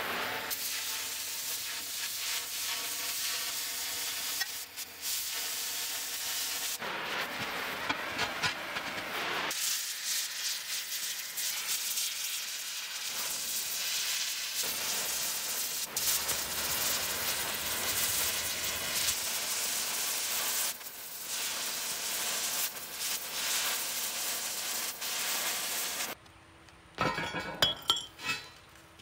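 Oxy-fuel cutting torch hissing steadily as it burns through rusty steel plate, with a few short breaks. Near the end the hiss stops and the cut steel pieces clank a few times as they are lifted.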